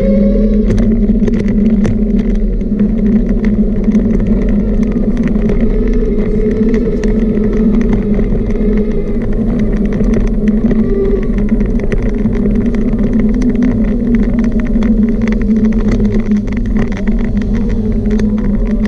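A small motor running steadily while riding, its whine sliding up and down in pitch with speed, over a constant hum, with frequent rattling clicks from bumps in the paving.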